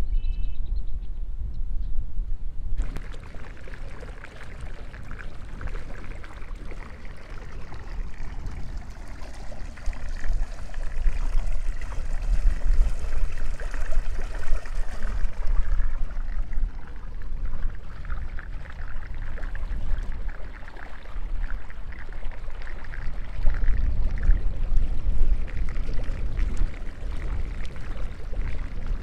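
Water rushing and churning through a concrete water-control box, a steady wash of noise that starts abruptly about three seconds in and thins out after the middle. Wind buffets the microphone with a low rumble, heaviest near the start and toward the end.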